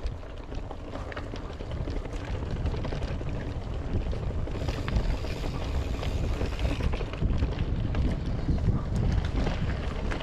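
Wind buffeting the microphone of a camera riding on a mountain bike on dirt singletrack, over the rumble of tyres on the trail and scattered small clicks and rattles from the bike; it grows a little louder after the first couple of seconds.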